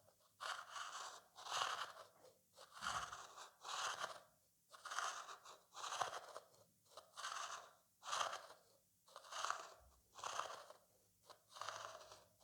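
A spoon scraped over a vase in even, repeated strokes, about one rasping scrape a second.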